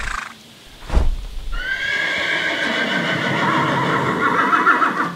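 A horse whinnying: one long neigh lasting about three and a half seconds that wavers toward the end, preceded by two heavy thuds about a second apart.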